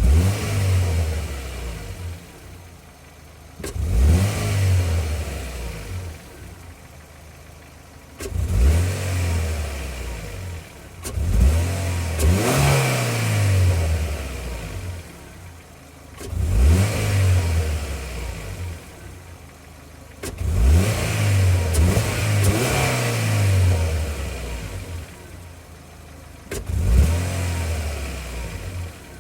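Car engine revved repeatedly from idle, about seven throttle blips that each rise and fall back; the engine has a misfire.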